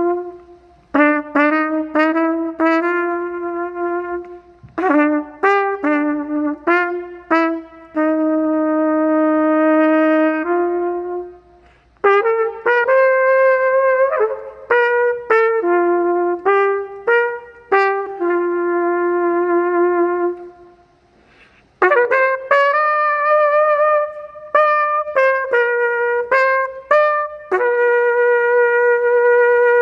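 Solo flugelhorn playing a slow melody, one note at a time, in phrases with short breaths between them.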